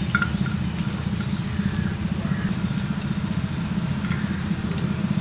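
A steady, low, engine-like rumble, like a motor idling, with a few light clinks of a metal slotted spoon against a plate.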